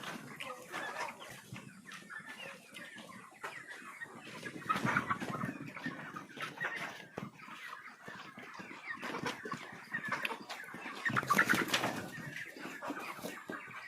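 A flock of chickens clucking, with many short clicks and scuffles among them. It is loudest about eleven seconds in.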